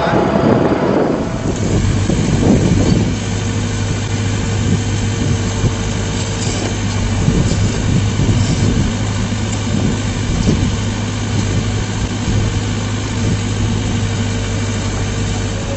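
Excavator engine and hydraulic system running steadily, driving a hydraulic earth-auger drill. It makes a constant low hum with a held whine above it, and the sound changes about a second in.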